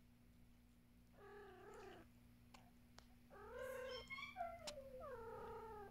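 Domestic cat meowing in a soft, drawn-out way: one call about a second in, then a longer call and a call that falls in pitch in the second half.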